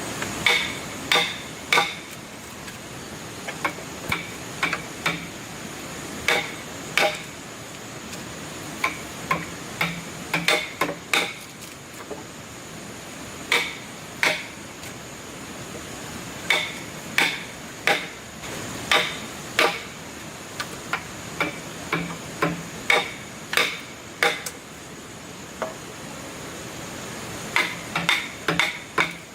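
Irregular hammer blows on wood, in single strikes and quick runs of two or three, each with a short ringing tone.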